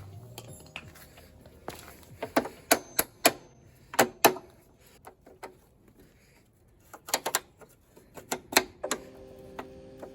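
Sharp metallic clicks and clinks of hand tools against metal mower parts, coming in irregular clusters of a few strikes each.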